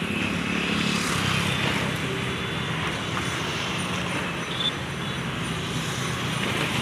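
Diesel engine of a rail track-maintenance vehicle running steadily as the machine travels along the track: a low hum under a broad rushing noise.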